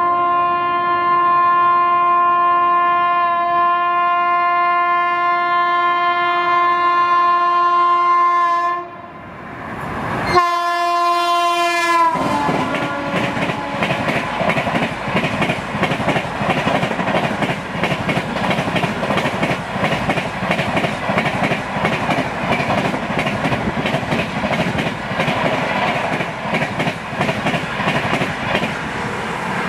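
Locomotive horn: one long steady blast that stops about nine seconds in, then a second blast whose pitch drops as the locomotive passes at speed. After that comes the continuous rush and rhythmic clatter of an LHB express's coach wheels over the rail joints as the train speeds through.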